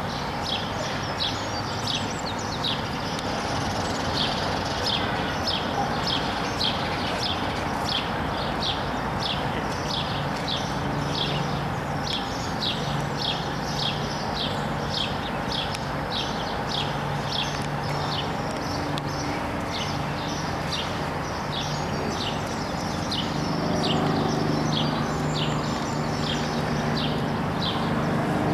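Outdoor ambience: a steady wash of background noise with a high, regular chirping, about two or three chirps a second. A low hum joins after about ten seconds.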